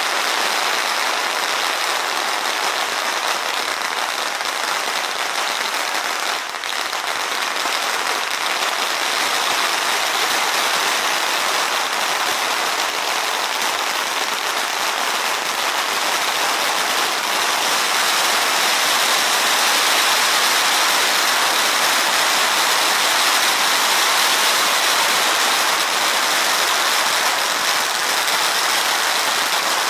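Long strings of red firecrackers burning along the pavement: a dense, unbroken crackle of rapid small bangs, a little louder in the second half.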